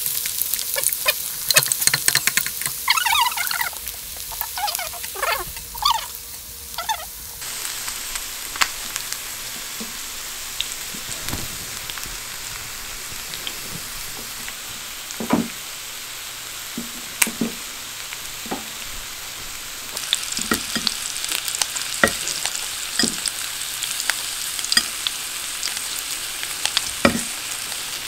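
Salmon and egg sizzling in butter on a ridged grill pan, with chopsticks clicking and scraping against the pan as the pieces are turned quickly.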